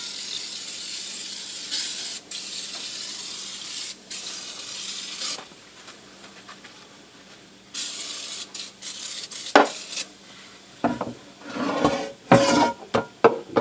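Aerosol oven cleaner hissing as it is sprayed onto a cast iron frying pan in a sink: long sprays through the first five seconds, then again about eight seconds in. Near the end come clunks and scrapes as the heavy pan is handled and turned over in the sink.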